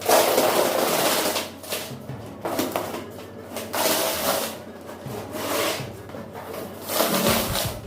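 Repeated rasping strokes of a hand tool worked over a surface, one roughly every second, each lasting under a second.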